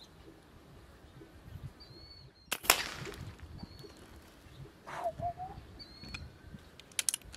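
Brocock Concept XR .25 PCP air rifle firing a single shot about two and a half seconds in, a sharp crack with a short tail. Small birds chirp briefly a few times, and a few light clicks come near the end.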